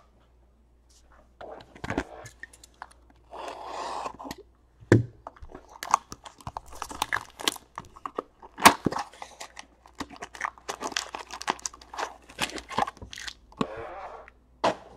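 A cardboard 2017 Topps Gold Label trading-card box is opened by hand and its wrapped packs are pulled out and stacked. There is an irregular run of crinkles, scrapes and light taps, with longer crinkling stretches about four seconds in and near the end.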